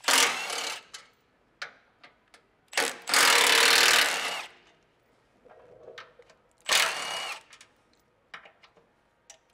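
Cordless impact gun with a 12 mm socket backing out the bolts of a catalytic-converter bracket: three short whirring runs, the longest about three seconds in, each winding down as it stops. A few light clicks fall between the runs.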